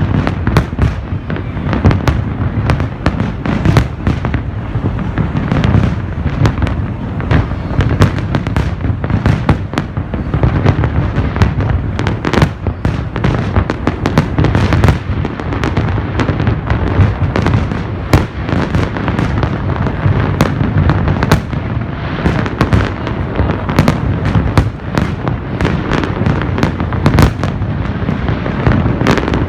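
Large fireworks display: a continuous barrage of shells bursting, many sharp bangs a second over a steady low rumble and crackle.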